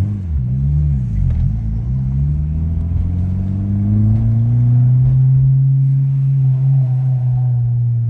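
Turbocharged Honda D17 four-cylinder in a Civic EM2 heard from inside the cabin while driving: the revs dip and rise in the first second or so, then climb steadily for about three seconds and settle into a steady drone.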